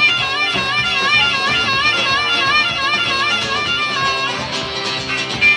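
Live acoustic blues: strummed acoustic guitar and drum kit under a harmonica playing a high, warbling lead line that wavers in pitch about three times a second. The harmonica drops out about a second before the end, leaving guitar and drums with a sharp drum hit.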